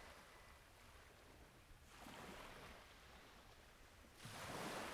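Faint rushing noise that swells twice, about two seconds in and more strongly near the end.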